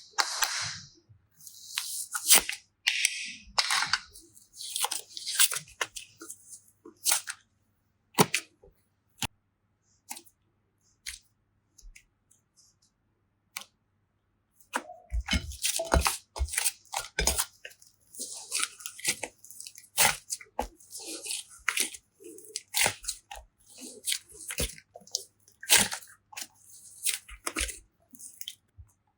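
Hands working slime and clay with their plastic bags and packaging: bursts of high, hissy rustling and crunching mixed with many sharp clicks, with a quieter stretch of scattered clicks in the middle.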